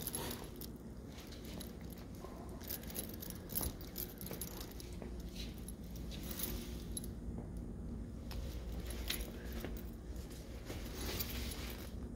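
Small metal jingling and clinking in short, irregular clusters as someone walks, over a low steady hum.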